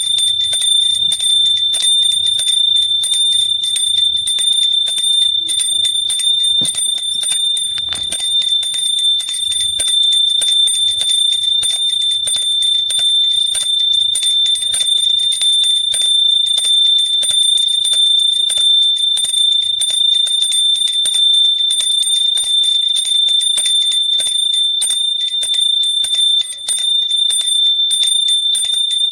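Small metal hand bell shaken continuously, its clapper striking rapidly so that one high ringing tone is kept up without a break, with only a brief drop about 26 seconds in.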